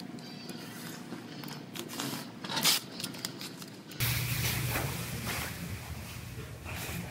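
Masking tape pulled from the roll and pressed on, with short rasping rips, then clear plastic masking sheeting crinkling and rustling as it is spread over the car body. A steady low hum comes in about four seconds in.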